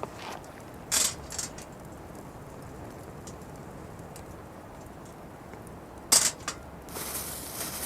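A few brief scrapes and rustles, the loudest about a second in and about six seconds in, then a short stretch of rustling near the end.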